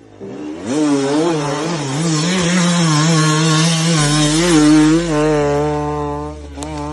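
Off-road vehicle engine revving hard, its pitch rising and falling over and over as the throttle is worked, as on a climb up a steep hill.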